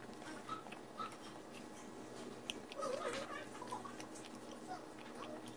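Close-up chewing of Jollibee Chickenjoy fried chicken: soft wet mouth clicks and small crunches, scattered through. A short voice-like sound comes about three seconds in.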